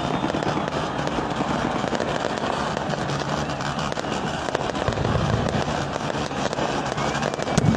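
Aerial fireworks display: a dense run of crackling and popping from bursting shells and crackling stars, with a louder bang near the end.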